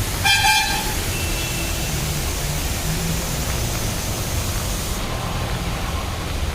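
Floodwater rushing along a street: a loud, steady rush of water. A short, high pitched tone sounds briefly about half a second in.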